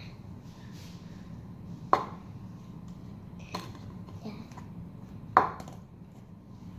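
Two sharp knocks about three and a half seconds apart, each with a short ring, and a few fainter clicks between them.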